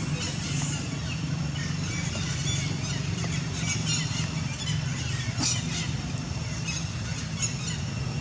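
Steady low engine hum, with scattered faint high chirps and ticks over it.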